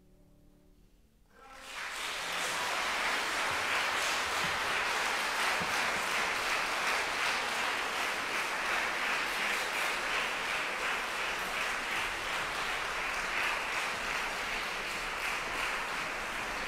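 A piano's last chord dies away, then an audience breaks into steady, sustained applause about a second and a half in.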